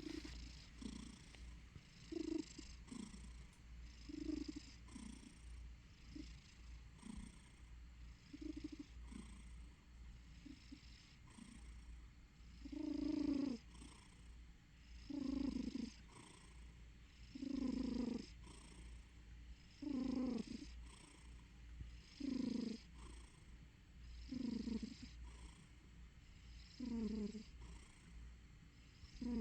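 Sleeping domestic cat snoring and purring in rhythm with its breathing, each breath a short rough burst. The breaths grow louder from about halfway through, coming about one every two seconds.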